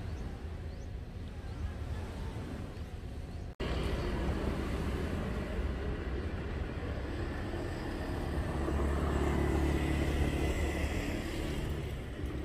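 Outdoor road traffic: a steady low rumble of passing cars and motorbikes, with a vehicle swelling louder and passing close later on. The audio briefly cuts out a little over a third of the way through.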